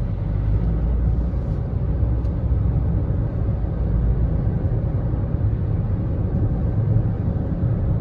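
Steady road and engine rumble heard from inside a car's cabin while it drives along a highway.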